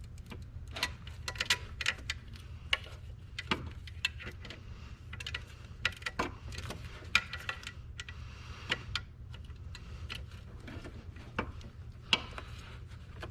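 Irregular metallic clicks and ticks of a hand wrench and socket working a small bracket's bolts on the engine, over a low steady hum.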